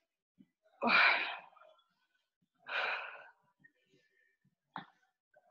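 A person exhaling hard twice, about two seconds apart: breathing from exertion during a workout set.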